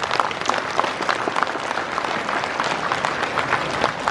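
Large audience in a hall applauding: many hands clapping at once in a dense, steady patter.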